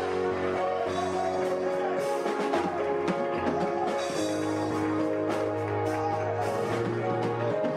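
Music with drums and a bass line that moves between held notes.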